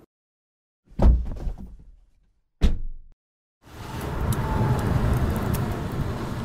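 Car sounds: two heavy thuds about a second and a half apart, each fading quickly. Then a steady rushing noise swells in about halfway and keeps going, with a brief faint whine in it.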